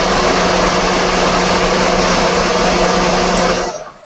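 Electric kitchen blender whirring loudly as it blends a liquid coquito drink mix, a steady whir with a low hum, switched off abruptly near the end.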